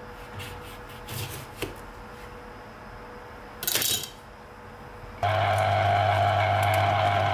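A knife cutting through an orange with a few soft clicks, then a brief clatter. About five seconds in, an electric citrus juicer's motor switches on and runs with a steady hum.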